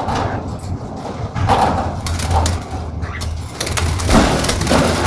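Bird cage being cleaned by hand: scraping, rustling and rattling from the cage's tray and wire, getting busier and louder about halfway through, over a low hum.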